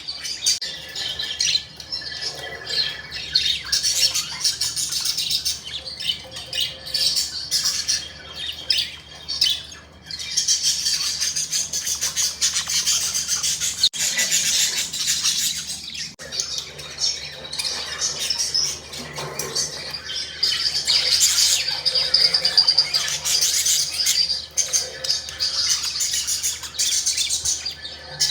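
Budgerigars chirping and chattering nonstop, a busy mix of high warbles and squawks, with a couple of brief lulls.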